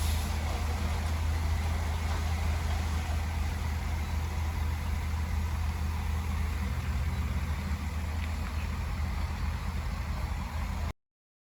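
Heavy diesel engine of earthmoving equipment running steadily with a low, even hum. The sound cuts to silence just before the end.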